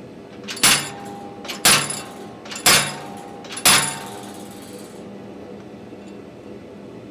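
Four hammer blows on an anvil, about one a second, each with a short metallic ring, as steel is forged by hand.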